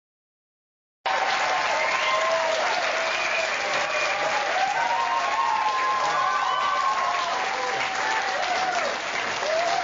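Studio audience applauding and cheering, starting suddenly about a second in and holding steady.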